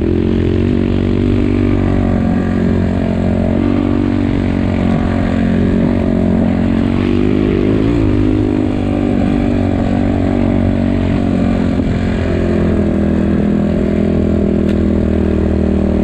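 A 250 cc enduro motorcycle engine, heard from on the bike, running steadily while it rides. The engine note dips and picks up again about eight seconds in.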